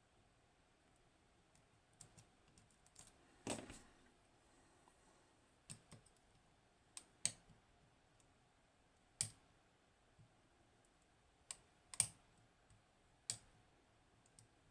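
Faint, irregular metallic clicks from picking a Hori Trident high-pin-count lock, the pick and tension tool working against the pins, with one longer rasp about a quarter of the way in.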